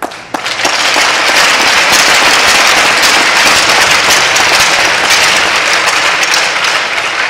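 Crowd applauding, a dense clatter of many hands that swells within the first second, stays loud and eases off near the end.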